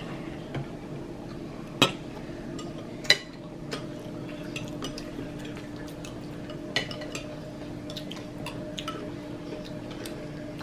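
Metal spoons clinking and scraping against cereal bowls of milk, a scatter of sharp clinks with two louder ones about two and three seconds in, over a steady low hum.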